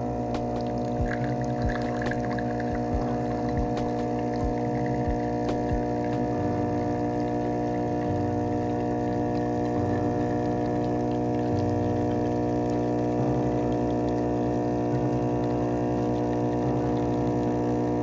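Gaggia Cadorna Prestige super-automatic espresso machine's pump running as it pushes water through for a shot: a steady hum of several constant tones.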